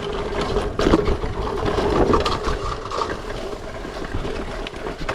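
Bike rolling fast down a dirt track, tyres crunching over the soil, with wind rumbling on the microphone.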